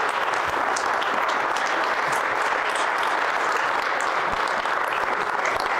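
A crowd applauding steadily: many hands clapping at once.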